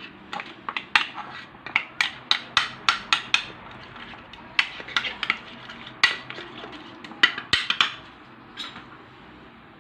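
Metal spoon clinking against a bowl in quick, irregular strikes while stirring a spiced yogurt marinade. The clicks thin out near the end.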